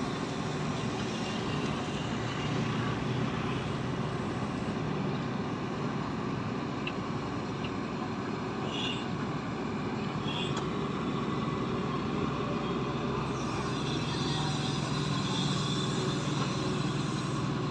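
Shantui crawler excavator's diesel engine running steadily while the machine digs mud.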